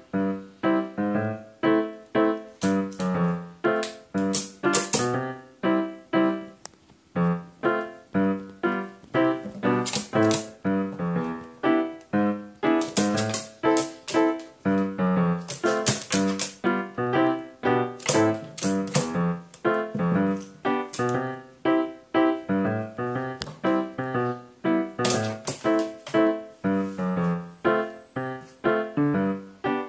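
Background music: a light, bouncy keyboard melody of short, quickly fading notes.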